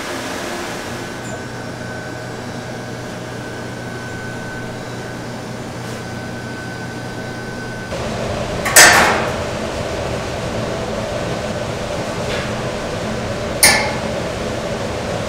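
Large ventilation fans running with a steady hum and a faint high whine. After about eight seconds the hum changes, and metal duck hooks clank sharply twice against a stainless-steel drum as ducks are hung inside, once about nine seconds in and again near the end.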